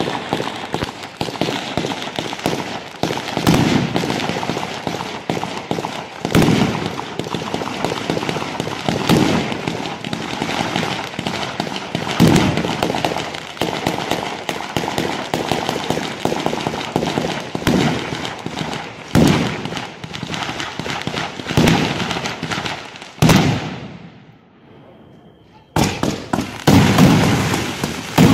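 A ground-level Bolognese-style fireworks battery (batteria bolognese) crackling densely, with a heavy bang about every three seconds. Near the end it drops away for about two seconds, then resumes with loud bursts.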